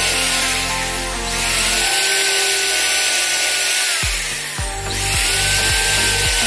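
Leiva electric drill running under load, boring through a thin sheet-metal disc with a loud hiss and motor whine. The motor winds down about four seconds in, then spins up again about a second later.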